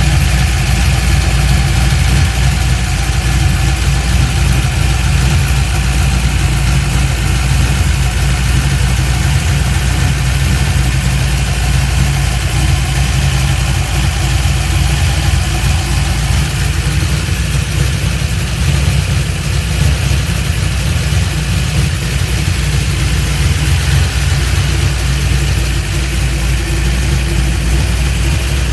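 The Holden VK Commodore's 355 cubic inch stroker V8 idling steadily.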